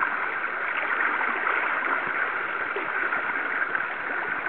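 Fast-flowing river water rushing, a steady, even noise.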